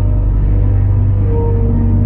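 Background music: a dark ambient track with a steady low drone and a few brief held notes above it.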